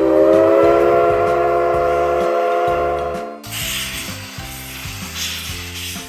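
Steam whistle of the C56 steam locomotive blowing one long, steady, multi-toned blast that stops about three and a half seconds in. Short hisses of steam follow.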